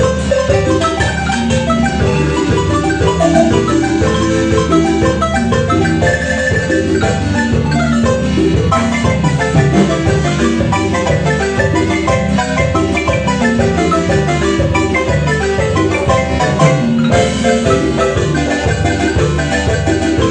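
Marimba music: quick runs of mallet notes over a steady lower part, played without a break.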